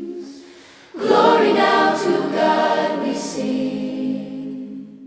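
Choir singing wordless, held notes of a Christmas carol: a note fades out, then about a second in the voices come in again on a long sustained phrase that slowly fades near the end.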